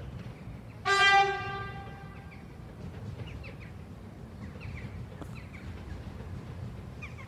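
Train horn sounding one short blast about a second in, trailing off over the next second. Faint bird chirps and a low rumble go on underneath.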